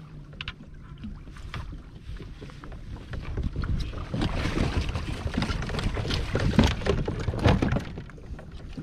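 Water splashing and sloshing against a fishing kayak's hull, with knocks and rustling on the boat. It grows much louder about four seconds in for a few seconds, then eases off.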